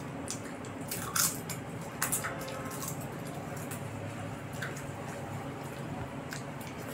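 Close-up eating sounds: wet squishing of rice and dal mixed by hand and chewed, with two sharp clicks about one and two seconds in, over a steady low hum.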